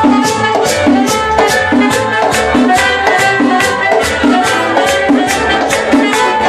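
Upbeat Latin-style music with a steady beat of shaken percussion, a repeating bass line and sustained melodic notes.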